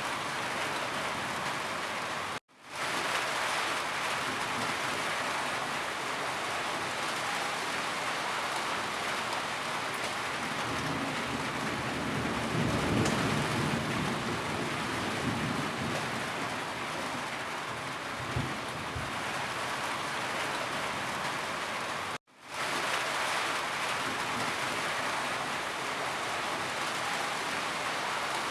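Steady heavy rainfall hissing on a surface, with a low rumble of thunder swelling in the middle. The rain cuts out to silence for a split second twice, about two seconds in and again near the end, where the loop is spliced.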